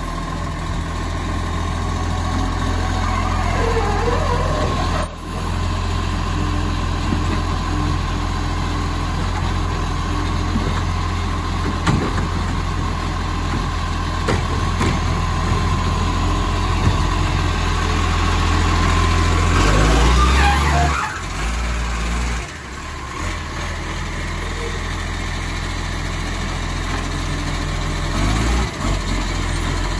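Side-loading garbage truck's diesel engine idling steadily while its automated lifting arm raises and tips a wheelie bin into the hopper. The engine sound changes abruptly about twenty seconds in.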